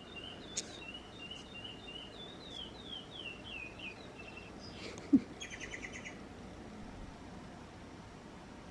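Faint bird chirping: a row of short chirps, then a quick run of falling notes, then a brief buzzy call. A single short low thump sounds about five seconds in.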